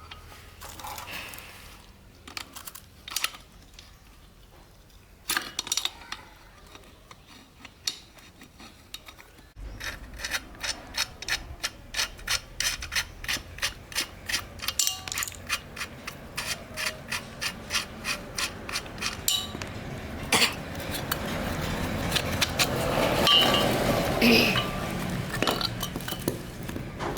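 Metal tools and parts clinking and clicking during repair work on a blower. From about ten seconds in comes a long run of regular clicks, about three a second, and the clattering grows louder and denser near the end.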